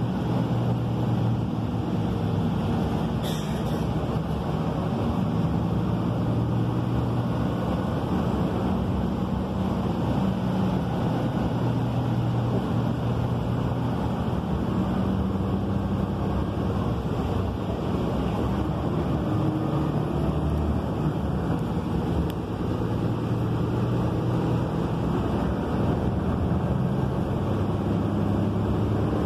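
Inside a 2013 Gillig Low Floor transit bus cruising at speed: the steady drone of its Cummins ISL9 diesel engine mixed with road and tyre noise in the cabin. A brief click sounds about three seconds in.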